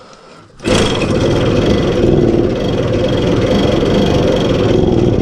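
A 50cc Minarelli two-stroke moped engine catches about a second in and runs loudly and unevenly after a series of failed starting attempts.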